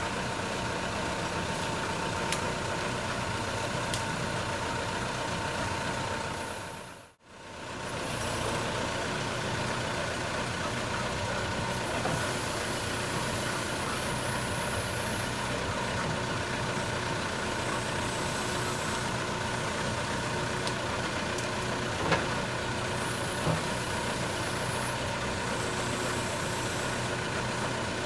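JCB 3CX backhoe loader's diesel engine running steadily, with a couple of short knocks in the last third. The sound fades out and back in about seven seconds in.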